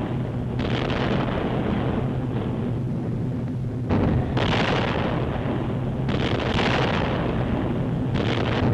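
Bomb explosions on an old newsreel soundtrack: a continuous rumbling roar with a steady low hum beneath it, and fresh blasts breaking in about a second in, near the middle and again towards the end.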